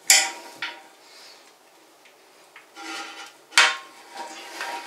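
Channel-lock pliers clicking and knocking against a tight plastic flush-valve lock nut on a porcelain toilet tank as they are gripped and turned. A few sharp clicks, the loudest right at the start and again about three and a half seconds in.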